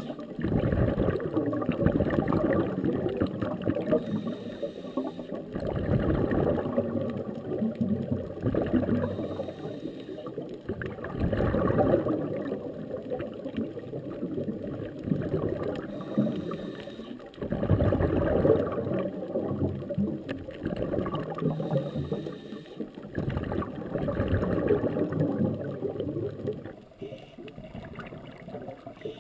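Scuba diver's exhaled bubbles from the regulator gurgling underwater, in about five surges of two to three seconds each, one every five or six seconds with the breathing, with quieter water noise between.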